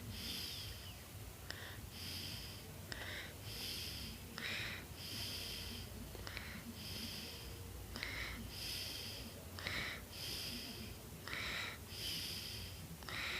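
Cat breathing close to the microphone, soft and regular. About one breath every one and a half seconds, each made of a short rasp and then a longer hiss.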